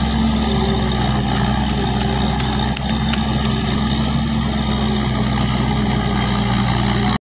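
Kangro paddy tractor's engine running steadily while it works a flooded rice field; the sound cuts off abruptly near the end.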